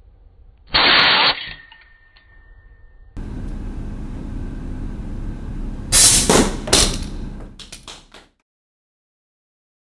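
Compressed-air marble launcher firing: a loud short hiss of released air with a faint steady tone lingering after it. Then a loud sharp crack and a quick run of clacks and knocks as the launcher fires, the electromagnet drops the toy monkey and the marble strikes it.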